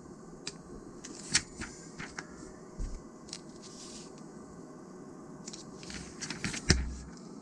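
Glossy magazine pages being turned and handled: crisp paper rustles and snaps, scattered early and bunched together later, the loudest a sharp snap with a soft thump near the end.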